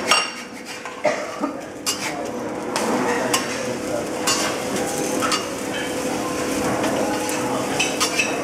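Omelets sizzling on a steel flat-top griddle, with a metal spatula scraping and clicking against the plate every second or so as it slides under and turns the eggs.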